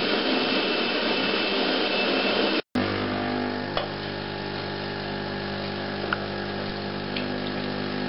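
Saeco Cafe Prima bean-to-cup coffee machine grinding beans with a steady whir. After a cut about two and a half seconds in, its pump hums steadily while coffee pours into the cup. The machine is running through a normal brew cycle after its slow brew-group motor drive was repaired.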